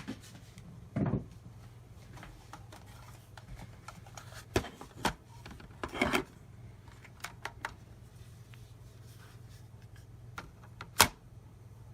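Scattered small clicks and rubbing as a pocket-size plastic power bank is handled and hefted, over a low steady hum, with one sharp click about eleven seconds in.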